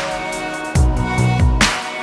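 Electronic background music with a heavy bass line and a cymbal crash about one and a half seconds in.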